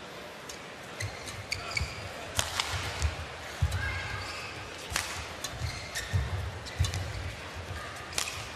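Badminton rally: sharp cracks of rackets striking the shuttlecock, with players' shoes squeaking and thudding on the court.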